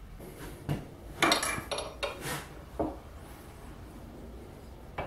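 Light metallic clinks and clicks of disassembled anchor bolt parts being handled, several in the first three seconds, then a single sharp click near the end as the rod goes into a bench vise.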